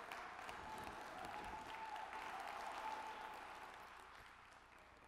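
Audience applauding, faint and distant-sounding, dying away near the end.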